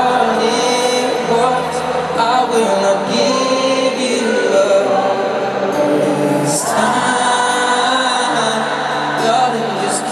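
A large concert crowd singing along with many voices over a live amplified acoustic guitar playing a slow ballad.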